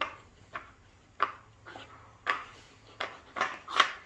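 Irregular clacks and knocks from a dog puzzle board's pegs and sliding covers as a husky noses and pushes at them, searching for hidden treats. There are about nine sharp knocks in uneven rhythm, and the loudest come near the end.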